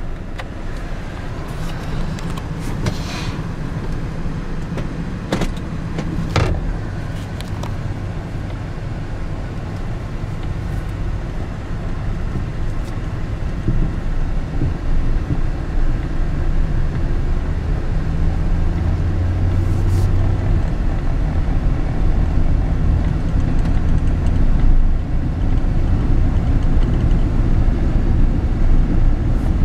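2006 Chevrolet Silverado pickup driving slowly, heard from inside the cab: a steady engine and road rumble with the air conditioning running. A few sharp clicks sound in the first several seconds, and the running grows louder in the second half.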